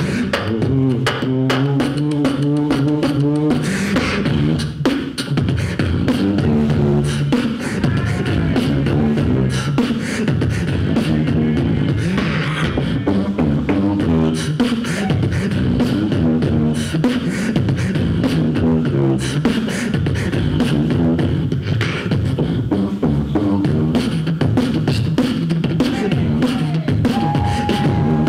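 Solo human beatboxing into a handheld microphone: rapid percussive mouth-drum sounds layered over a hummed, pitched bass line. A single high tone is held near the end.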